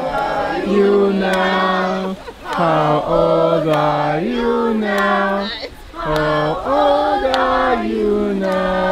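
A group of children and a woman singing a birthday song together in unison, holding long notes.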